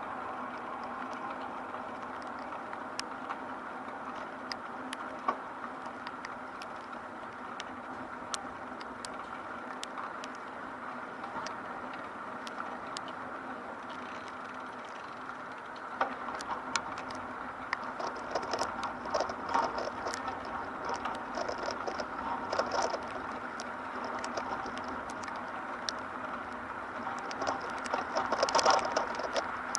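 Rain pattering in many small ticks over a steady city street hum. The patter gets heavier and busier about halfway through.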